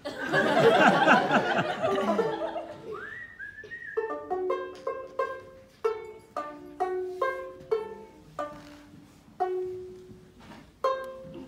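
Audience laughing and clapping for the first couple of seconds. Then a small plucked stringed instrument plays a slow melody of single notes, about two a second, each ringing briefly.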